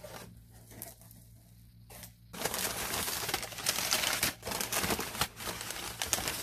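Brown packing paper crumpling and crinkling as it is pulled out of a cardboard shipping box, starting about two seconds in after a few faint handling clicks.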